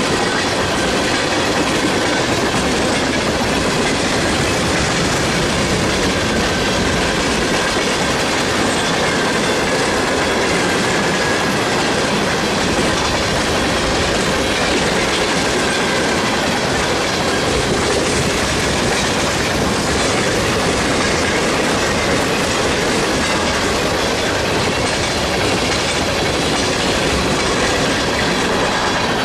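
Loaded freight train of tank cars, covered hoppers and boxcars rolling past at speed: a steady, loud rush of steel wheels on rail with clickety-clack over the joints.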